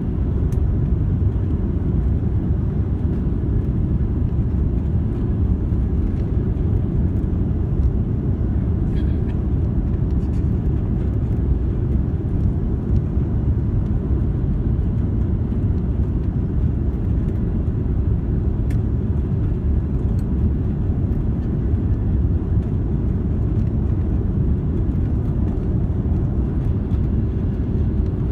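Airplane noise: a steady, even low rumble that does not change.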